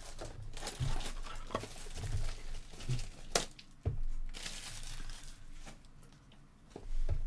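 Trading-card pack wrappers crinkling and tearing as packs are opened and cards are handled, with a few sharp light clicks and taps.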